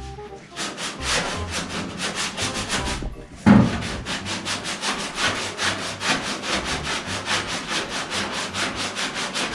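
Rapid back-and-forth hand scrubbing of the car's sheet metal with a Scotch-Brite abrasive pad, about five strokes a second. The strokes stop briefly, there is one loud thump about three and a half seconds in, and then the scrubbing resumes.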